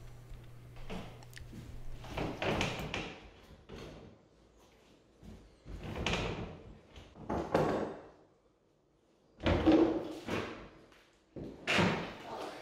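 Linoleum-covered plywood subfloor panels being pried up and shifted by hand: a string of separate wooden scrapes and knocks, each under a second, with the loudest about ten seconds in.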